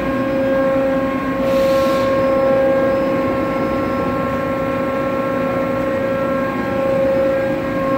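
Tarus TPEXHD412 CNC gun drill running with its hydraulic pumps on: a steady, even humming whine. A short burst of hiss comes about a second and a half in.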